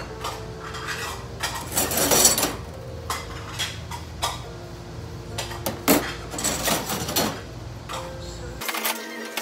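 Stainless steel serving tongs clinking and clattering against each other and the steel counter as they are wiped dry with a cloth, in a series of short metallic clatters, the loudest about two seconds and six seconds in.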